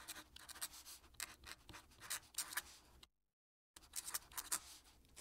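Fountain pen nib scratching across paper in quick strokes while writing a signature, stopping for about half a second a little after three seconds in before the strokes resume.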